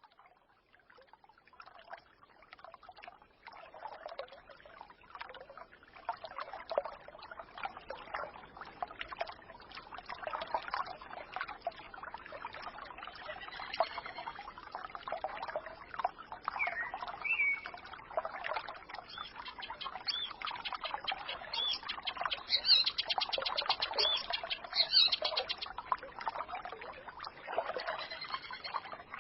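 Small forest stream babbling and gurgling, with small birds chirping over it. The sound fades in from silence over the first few seconds, and short bird chirps come through from about halfway on.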